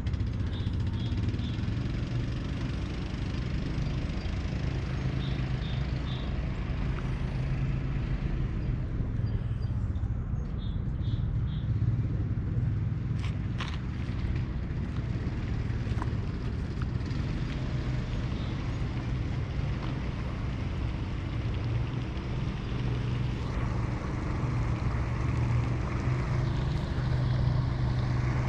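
Car running down the road, heard from inside the cabin: a steady low engine hum with tyre and road noise throughout, and a few faint clicks.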